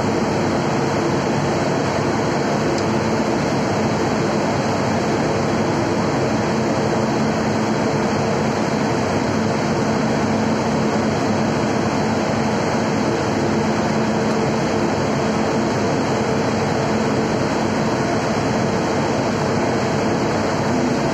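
Locomotive running at a standstill: an even, unchanging drone of machinery with a faint low hum.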